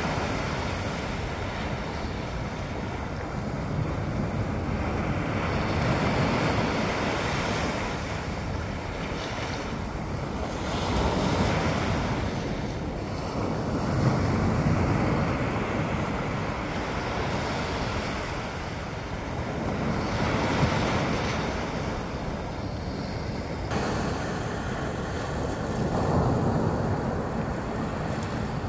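Atlantic Ocean surf breaking and washing onto the beach, swelling and easing every five or six seconds, with wind buffeting the microphone.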